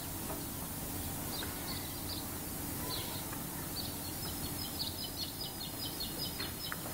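Small birds chirping over a steady background noise, with a quick run of high chirps in the second half.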